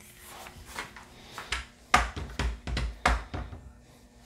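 Rifles being handled and set down: a run of sharp clicks and knocks with dull thuds, loudest about two to three seconds in.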